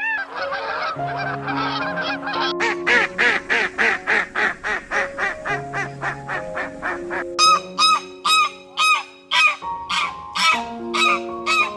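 Farm poultry calling in quick, repeated calls, two to three a second, over background music with sustained notes; the calls change in character about a third of the way in and again past the middle, as if a different bird or flock is heard.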